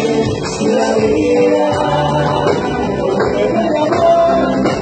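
Live grupera band music with men singing over the instruments.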